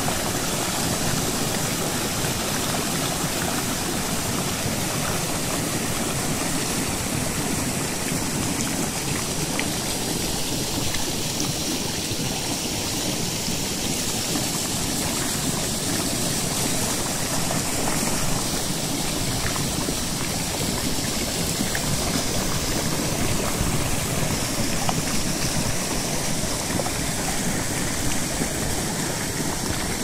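Monsoon-fed waterfall rushing steadily over a rock ledge, heard from right at its brink.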